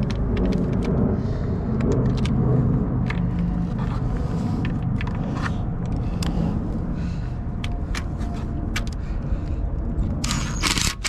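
A steady low engine rumble, with scattered sharp clicks and knocks of bolts and metal parts being handled, and a burst of loud hiss near the end.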